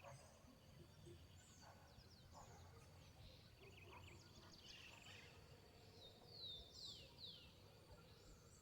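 Faint birds chirping in the background, with a few clear downward-sliding whistles about six to seven seconds in, over a faint low hum of outdoor noise.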